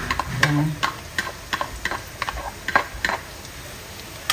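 Sharp clicks and taps, about three a second, as chopped garlic is scraped and knocked out of a ceramic bowl with a spatula into a pan of hot oil. A light sizzle of the oil runs underneath.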